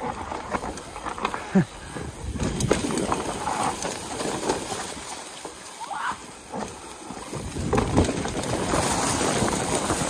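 Mountain bike rolling fast downhill over a leaf-covered dirt trail: tyre noise with irregular knocks and rattles as the wheels hit bumps and roots.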